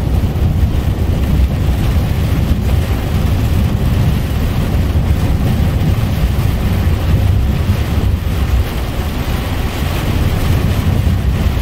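Steady noise inside a moving truck's cab in rain: a constant deep engine and road drone with the hiss of rain on the cab.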